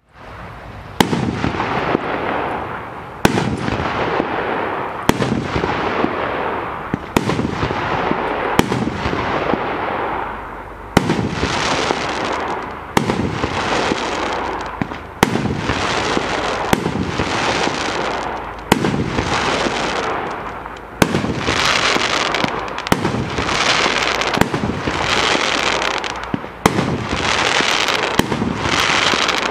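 A consumer firework cake firing shot after shot: about fifteen sharp bangs, one roughly every two seconds. Each bang is followed by a hissing, crackling spray that lasts a second or two.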